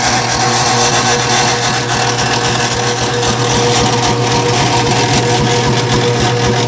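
Say-Mak power hammer running steadily: its electric motor drives the flywheel through a cogged timing belt, giving a constant low hum with a few steady tones above it.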